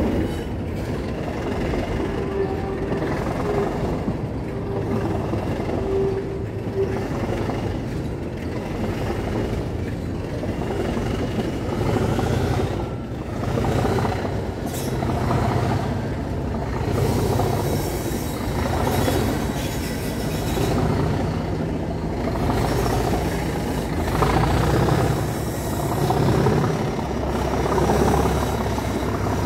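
Class 37 diesel locomotive's English Electric V12 engine pulling the train under power, heard from a carriage window over the running noise of wheels on the rails. The engine note grows stronger about halfway through and swells and fades every couple of seconds.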